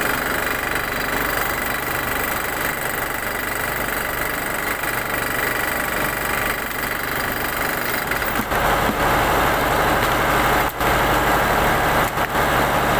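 An engine running steadily with a low hum, getting louder about eight and a half seconds in.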